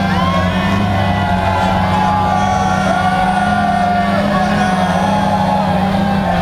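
Quadcopter camera drone's propellers humming steadily close to the microphone, the pitch wavering slightly as it hovers. A club crowd cheers and shouts over it.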